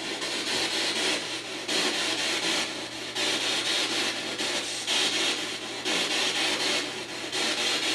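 Spirit box sweeping through radio stations, played over a small speaker: a steady rush of radio static that chops and changes every fraction of a second.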